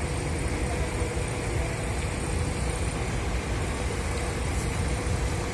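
Parked diesel coach engines idling: a steady low rumble with a steady hum above it.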